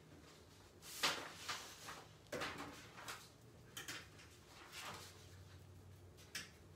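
Faint, scattered short scuffs and rustles of a paintbrush being worked on a paper-plate palette and a wooden chair seat, about six of them, over a low steady hum.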